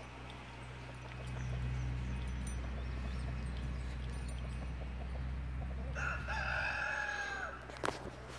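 A rooster crows once, a single held call starting about six seconds in, over a steady low rumble.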